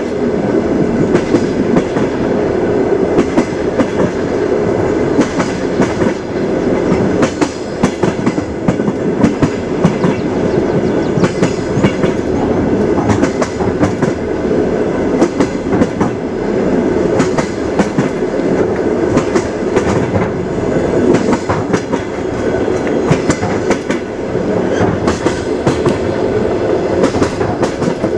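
Train wheels clattering over the rails: a steady rumble with frequent, irregular sharp knocks.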